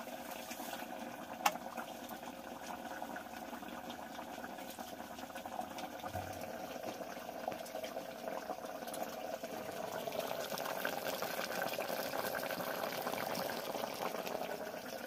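Chicken cooking in a pressure cooker pot, a steady bubbling and crackling simmer that grows a little louder in the second half.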